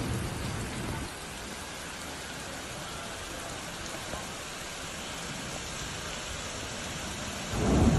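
Heavy rain falling on a flooded street, a steady hiss. It carries a heavier low rumble in the first second, and a louder low rush comes in near the end.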